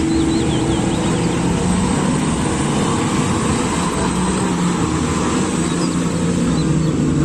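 Diesel engine of a large mining haul truck (Komatsu HD785 type) running steadily under load as the loaded dump truck drives along a dirt haul road, a deep even drone with tyre and road noise.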